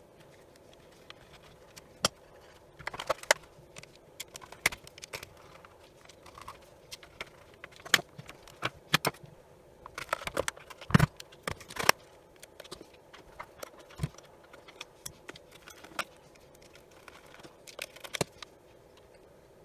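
Irregular clicks, taps and light knocks of small parts and tools being handled while a Milwaukee M12 inspection camera is put back together, busiest around ten to twelve seconds in.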